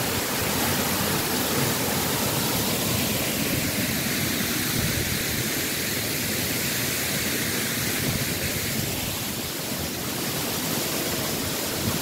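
A waterfall pouring in heavy flow, swollen by heavy rain the day before: a steady rush of falling water.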